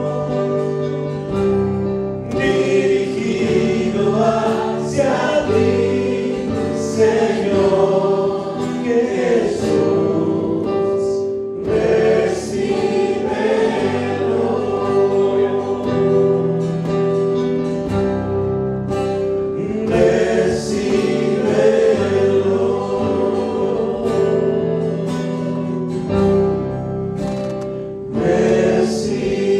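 Christian worship music: a choir singing a Spanish-language worship song over held chords.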